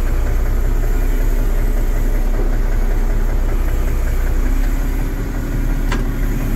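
Massey Ferguson 1135's six-cylinder diesel engine idling steadily, heard from inside its noisy cab. A single sharp click near the end, and a steady hum joins in partway through.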